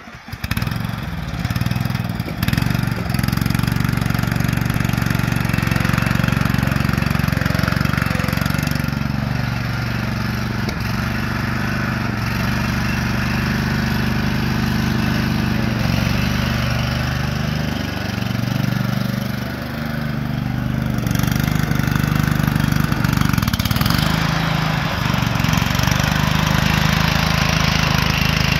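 Engine of a Cub Cadet CC30H rear-engine riding lawn mower running steadily as the mower is driven, its note shifting slightly up and down and easing briefly about two-thirds of the way through.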